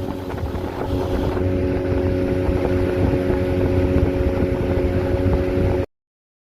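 Motorboat engine running steadily under way on a river, with wind buffeting the microphone. It cuts off suddenly near the end.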